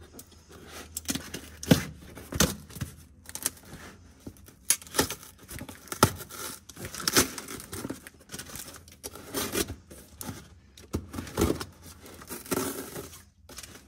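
Cardboard shipping box being opened by hand: packing tape ripping and cardboard flaps tearing and crinkling in a string of irregular sharp rips and rustles.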